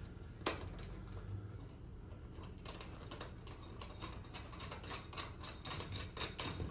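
Faint, quick small clicks and rattles from a metal swivel caster being turned and fitted by hand. The clicks come thicker and faster in the second half.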